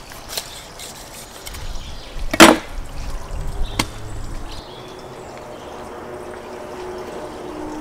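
Knife cutting the tail off a whole salmon on a salt-lined metal baking tray: scraping and crunching, with a sharp knock about two and a half seconds in and a smaller one near four seconds.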